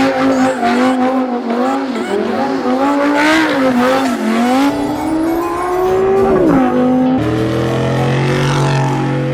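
Audi R8 engine revving hard while doing donuts, its pitch rising and falling, with tyres squealing. It climbs near the end of the spin, then drops sharply. About seven seconds in, a lower, steady engine note takes over.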